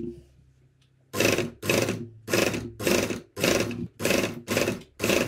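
Electric sewing machine stitching through thick knit fabric in short runs, about two a second, over a steady motor hum.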